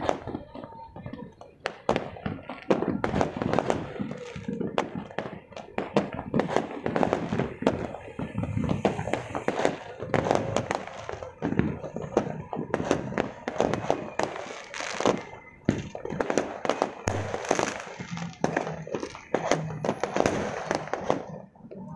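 Many fireworks going off across a city, a dense, irregular run of bangs and crackles with no pause.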